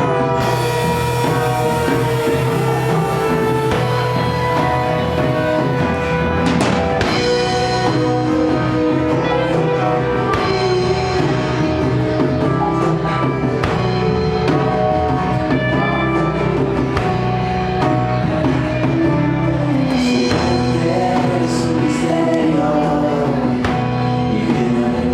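A rock band playing live, with drum kit and guitar under sustained, slowly gliding lead notes.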